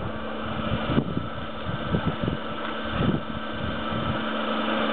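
Lawn sprinkler spraying water with a steady hiss and a constant low hum, with short irregular sounds from a German shepherd snapping and biting at the spray.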